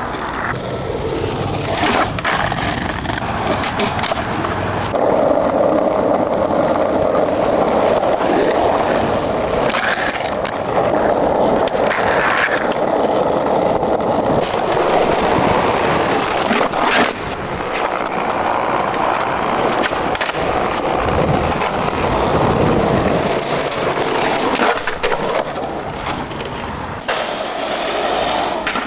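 Skateboard wheels rolling over paving stones and asphalt, a steady gritty rolling noise, with a few sharp clacks of the board striking the ground.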